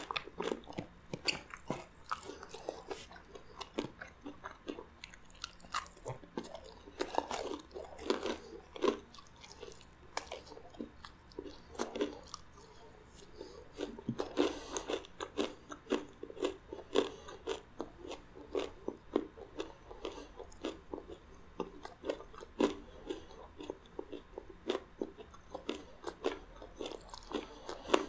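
Close-miked chewing of crispy fried chicken: irregular crunches and mouth clicks.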